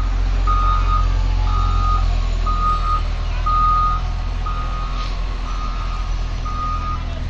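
Caterpillar wheel loader's reversing alarm beeping steadily, about one beep a second, over its diesel engine running.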